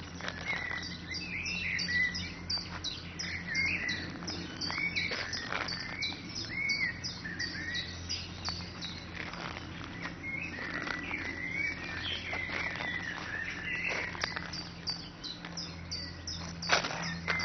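Many small birds chirping and twittering in quick, repeated notes, over a steady low hum. A single sharp click near the end.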